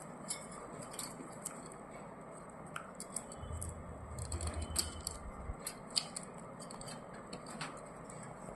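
Irregular small clicks and scratchy ticks of a ringneck parrot's beak nibbling and biting, with a low rumble for about two seconds near the middle.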